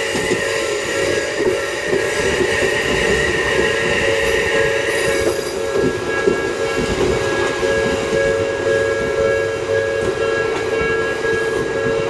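Odakyu electric commuter train passing over a level crossing: steady rumble and wheel clatter on the rails. The crossing's warning bell rings steadily over it.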